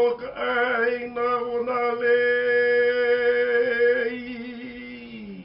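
A man chanting solo: short wavering phrases, then one long steady held note that fades and slides down in pitch near the end.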